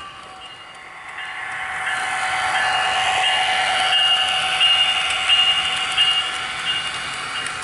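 HO-scale model train running past close by: its running sound builds about a second in, is loudest from about three to six seconds with a few sharp clicks, then eases off.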